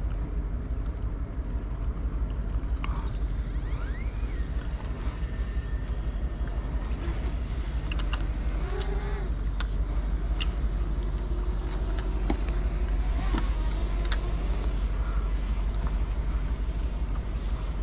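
A steady low rumble that runs on unbroken, with a few faint sharp clicks and short rising and falling chirps over it in the middle.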